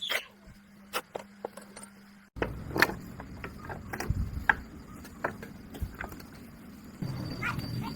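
Scattered metallic clinks and knocks of hand tools and motorcycle engine parts being handled. A faint steady hum cuts off about two seconds in, and the background changes again near the end.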